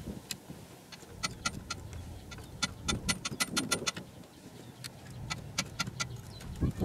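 Hand ratchet clicking in short quick runs while it backs out the Torx T25 screws holding a throttle position sensor to the throttle body.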